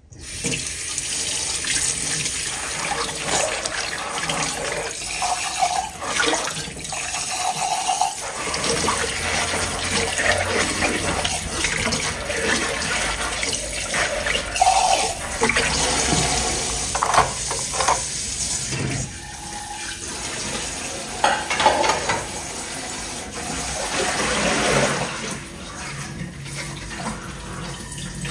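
Kitchen tap running into a sink, with water splashing and a few short knocks.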